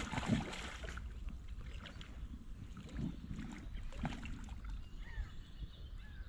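Water splashing and sloshing at the bank as a hooked carp is played close in and a landing net is worked in the shallows, loudest right at the start and again about three and four seconds in. A low rumble of wind on the microphone runs underneath, and a bird chirps briefly near the end.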